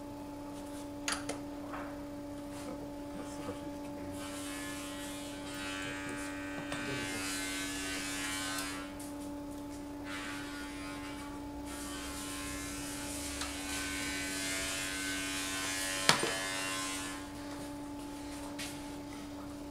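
Light clicks and rattles of fittings being unclipped from the top of a Renault Clio 1.4 petrol engine, with one sharp snap about sixteen seconds in. A steady electrical hum runs under it, and a buzzing whir comes up twice in the background.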